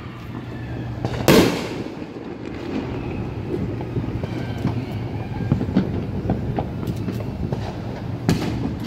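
Fireworks going off: one loud bang about a second in and a second, smaller one near the end, with scattered crackles over a steady low rumble.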